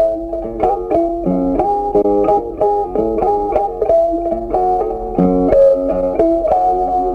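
Background music: a plucked guitar tune, note following note at an even pace.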